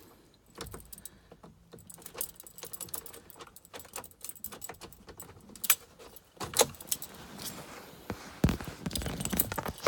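Keys on a key ring jangling, with a run of small metal clicks and a few sharper knocks in the second half, as the ignition lock cylinder of a 2001 Ford F-350 is released with a small screwdriver pushed into its release hole and pulled from the steering column.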